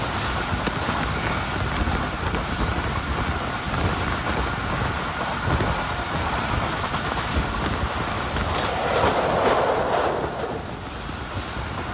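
Passenger train running at speed, heard from an open coach window: a steady rumble of the wheels on the rails with rushing noise. About nine seconds in, the rushing noise swells louder for a second or so, then eases back.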